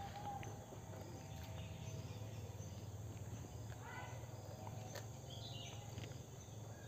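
Faint outdoor ambience of insects buzzing over a low steady hum, with a couple of short bird calls about four seconds in, the second falling in pitch.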